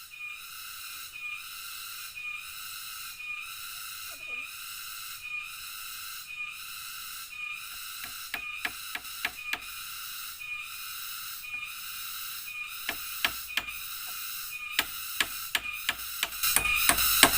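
Rainforest insect chorus: a high, shrill buzzing that swells and fades about once a second. From about eight seconds in it is joined by a scatter of sharp clicks and knocks, which come more often near the end.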